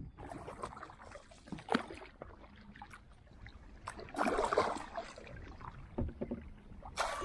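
Kayak paddle strokes in lake water: irregular splashing and dripping, with a louder splashy stroke about four seconds in and another near the end.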